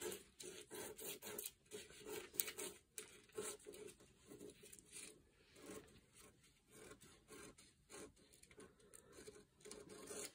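Scissors cutting through a paper pattern: faint, irregular snips and paper scraping as the blades work along the drafted line.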